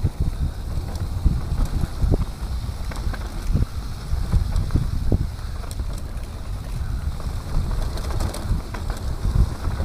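Mountain bike descending a dirt forest trail: wind buffeting the camera microphone and tyres rumbling over the dirt, with irregular thumps and rattles as the bike hits bumps.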